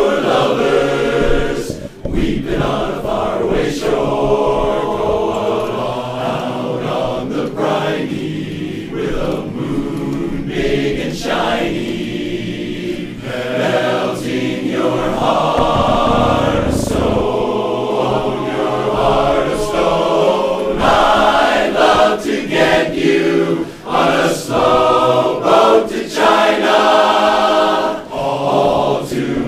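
Large men's barbershop chorus singing a cappella in close harmony, with short breaks between phrases.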